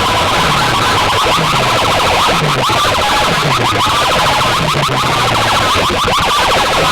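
Loud siren-style DJ effect played over a competition sound system's speaker stacks: fast warbling sweeps over a bass line that drops in pitch again and again, about once a second or faster.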